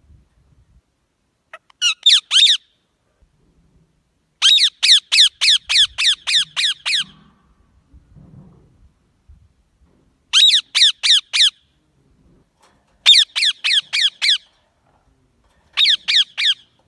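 Green parrot calling in runs of sharp, repeated squawks, about four a second, each call falling steeply in pitch. There are five runs, the longest of about a dozen calls, with short pauses between them.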